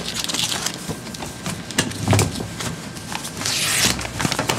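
Paper being handled as sealed bid envelopes are opened: rustling and small clicks, with a burst of louder rustling near the end and a brief low sound about two seconds in.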